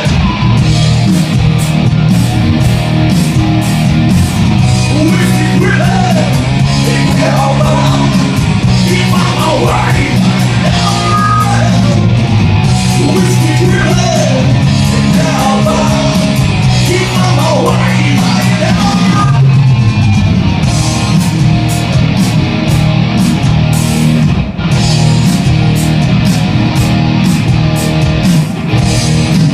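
A live rock band playing loud, with electric guitar and drums, recorded on a phone microphone. A sung and shouted vocal runs through roughly the first two-thirds, then the band carries on instrumentally with crashing cymbals.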